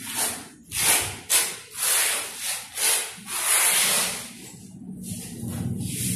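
A quick series of rough scraping strokes on a hard surface, about seven in a row, the longest a little past the middle. They die down for the last two seconds.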